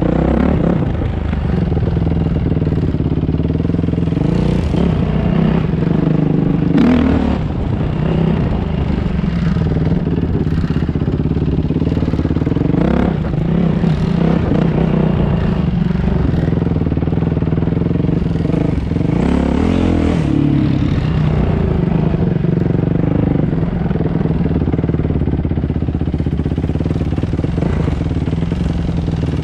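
Engine of a 450 off-road machine running at trail speed close to the microphone, steady with several short throttle blips, and some rattle from rough ground.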